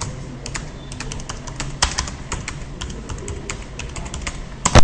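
Typing on a computer keyboard: a run of irregular keystrokes, several a second, with one louder knock near the end.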